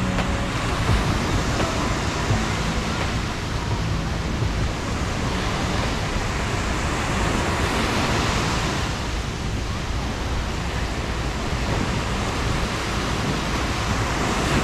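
Sea surf on a sandy beach: small waves breaking and washing up the shore in a steady rush that swells louder about eight seconds in.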